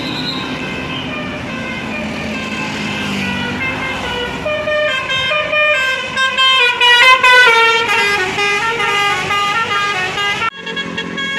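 Basuri telolet musical bus horn playing a tune of quick-changing notes, getting faster and louder in the middle, with a sudden break near the end.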